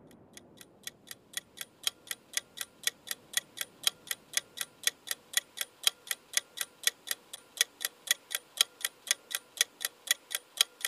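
Steady, even clock-like ticking, about four ticks a second, growing louder over the first second or two.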